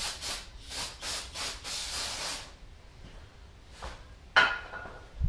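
Oil filter cap being cleaned with brake parts cleaner: a run of short, bright hissing strokes, about three a second, the last one longest, stopping about two and a half seconds in. A sharp clack near the end is the loudest sound.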